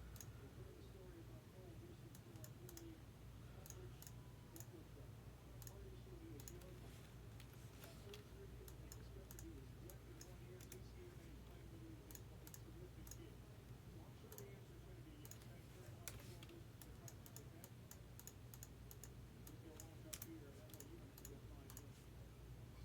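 Faint, irregular clicking and typing on a computer keyboard and mouse, over a steady low hum.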